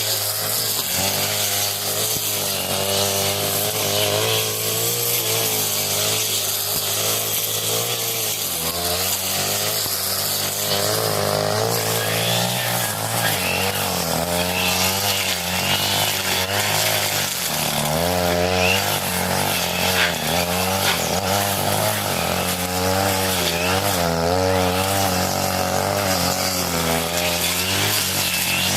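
40cc two-stroke brush cutter running at high revs, its engine speed wavering up and down as the blade cuts through thick grass.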